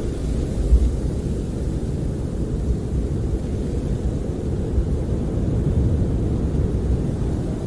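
Snowstorm wind buffeting a camper, heard from inside as a steady, muffled low rumble with surging gusts.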